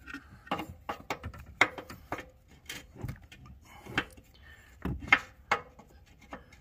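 Irregular clicks and knocks of metal parts being handled as the pulled-out upper steering shaft is worked by hand.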